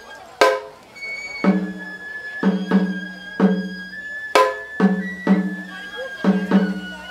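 Live Japanese festival music (matsuri-bayashi): a bamboo transverse flute playing long held notes over taiko drum strokes, which come irregularly, often in quick pairs, each with a deep resonant ring.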